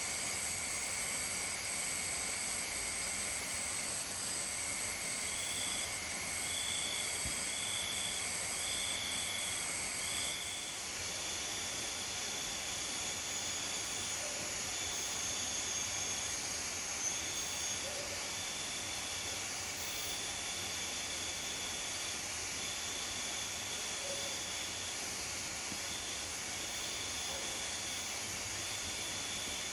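Night chorus of insects: steady high-pitched trills layered with a repeated pulsed call, over a constant hiss. The highest trill stops about ten seconds in while the pulsed calls carry on.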